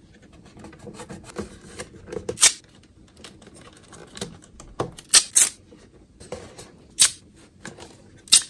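Hands pressing strips of tape over loose LED light-kit wires on the inside of a hard plastic RC truck body shell: scattered light clicks and taps of handling, with about five short, sharp rasps of the tape.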